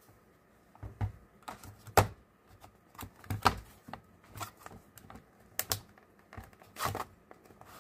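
Hard plastic parts clicking and knocking irregularly as a battery pack and a sliding cover panel are pressed and slid into a plastic case frame, with the sharpest knock about two seconds in.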